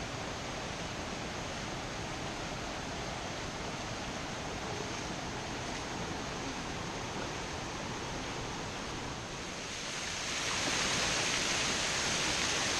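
Big Bradley Falls rushing steadily, a continuous roar of falling water that grows louder and brighter about ten seconds in.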